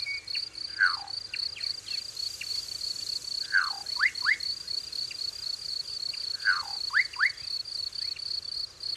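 Natural savanna ambience: a steady, high, finely pulsed insect trill throughout, with a bird repeating a short whistled phrase, one falling note followed by two quick rising notes, about every three seconds.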